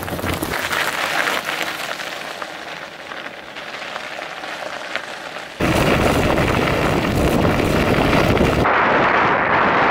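Bicycle tyres rolling over a wet, icy surface with a hiss and faint crackle. About five and a half seconds in it cuts to a loud, deep rumble of wind buffeting a microphone mounted on the moving bike, over the tyre noise.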